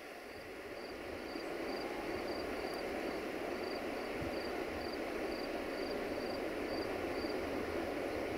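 A steady rushing of shallow river water, slowly growing a little louder. A high insect chirp repeats about twice a second over it.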